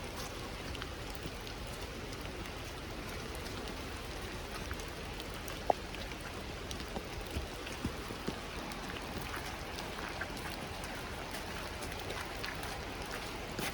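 Steady rain falling, with scattered drops tapping close by and one sharp tap a little under six seconds in.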